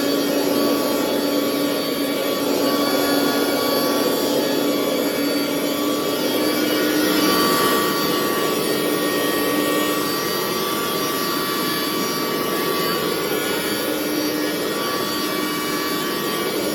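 Upright carpet cleaner's suction motor running steadily and loudly, with a steady hum and a higher whine over a rushing noise, as it is worked over carpet.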